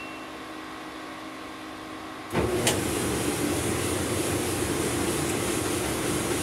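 Samsung clothes dryer starting up about two seconds in, with a click just after: its motor, blower and drum begin running with a steady hum and rush of air.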